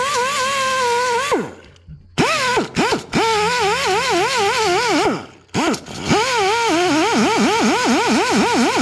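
A grinder working rough spot welds in a car's engine bay, its whine dipping and recovering several times a second as it is pressed and rocked across the metal. It is released and spins down about a second and a half in, then is started again twice.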